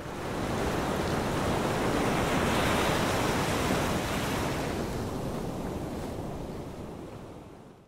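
Ocean surf washing in over rocks: a steady rush of water that swells over the first few seconds and fades out near the end.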